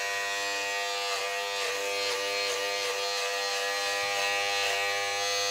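Philips Norelco Multigroom 3100 cordless beard trimmer running at a steady pitch as it is drawn over beard stubble along the jaw and neck.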